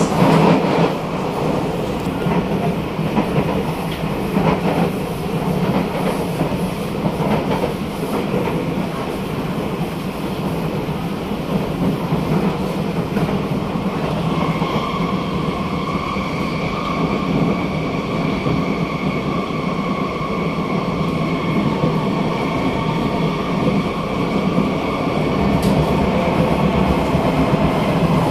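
Interior running noise of a Kawasaki–CRRC Sifang C151A metro train moving along the track: a steady dense rumble. In the first second another train passing close by adds a louder rush. From about halfway a steady high-pitched tone joins in and holds.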